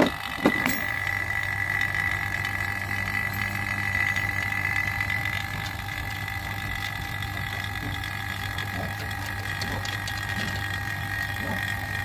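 Electric vacuum pump running steadily with a low hum and a high whine, drawing a vacuum on an inverter split air conditioner's R410A refrigerant lines through a manifold gauge set. Two sharp knocks come right at the start, and the hum settles in about a second in.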